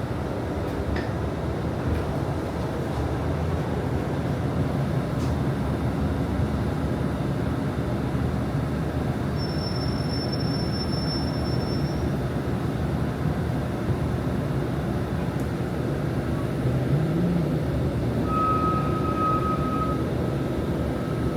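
Inside a moving city bus: steady engine and road noise. A thin, high steady tone sounds for a couple of seconds about nine seconds in, and a lower steady tone for about two seconds near the end.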